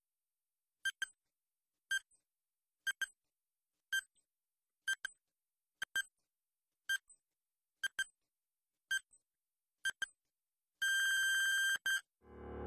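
Countdown timer sound effect: a short electronic beep once a second, ten times, then one long beep of about a second at zero. Just before the end a deep, swelling sound starts and grows quickly louder.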